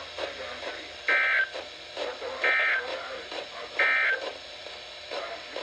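Emergency Alert System end-of-message data bursts over a radio: three short, identical two-tone digital chirps about a second apart, signalling the end of the alert. Faint radio speech runs underneath.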